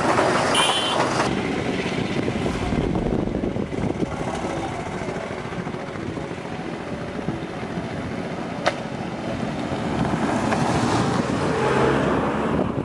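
Road traffic: vehicles running along a road, with a steady mix of engine and tyre noise. It swells again about ten seconds in, and there is one sharp click partway through.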